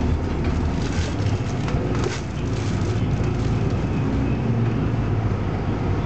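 City bus under way, heard from inside the passenger cabin: a steady low engine drone mixed with road noise, and a few sharp rattles from the bus fittings about one and two seconds in.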